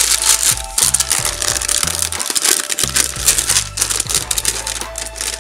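Background music with a steady bass line, over the crinkling rustle of thin ironing paper being peeled off fused Perler beads.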